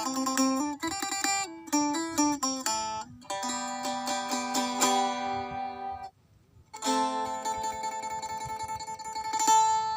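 Acoustic-electric phin, the Isan plucked lute, played solo: a quick run of plucked notes, then held ringing notes. The notes break off for a moment about six seconds in, then a closing phrase of rapidly repeated picking rings out and fades near the end.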